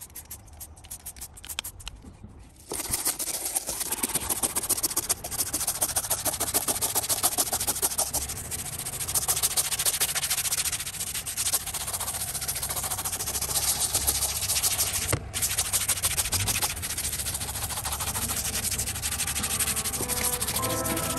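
A handheld spray bottle squirted a few times onto a vinyl door panel. About three seconds in, a bristle brush starts scrubbing the textured trim, a steady rapid scratching as the all-purpose cleaner is worked into foam.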